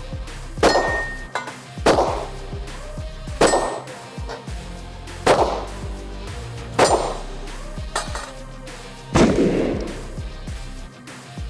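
Taurus 650 revolver fired at steel targets: about six shots, one every couple of seconds, each with a clang of the steel plate ringing after the hit. Background music plays underneath.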